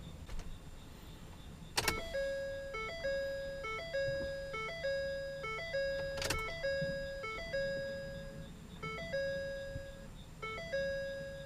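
Ford F-350's warning chime dinging over and over, a two-note ding about every 0.6 s with a couple of short breaks. It starts after a sharp click about two seconds in, and another click comes about six seconds in, while the ignition is switched on to prime the fuel system after a fuel filter change.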